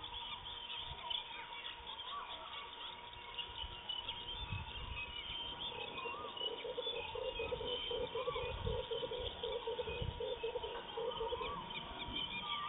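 Wild birds calling and chirping in many short notes and glides over a faint steady high tone. From about six seconds in, a lower call repeats two or three times a second for about five seconds. A few dull low thumps come in between.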